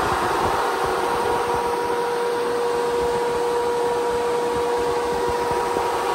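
SPAL 13-inch brushless radiator fan running steadily at full speed: a steady rush of air with a steady mid-pitched whine from the blades.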